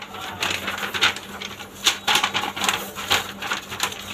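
Large sheets of printed paper rustling and crackling in irregular bursts as they are handled and shuffled, over a steady low machine hum.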